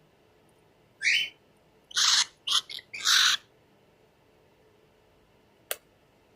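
Cockatiel giving five short, harsh calls in quick succession, then a single sharp click near the end.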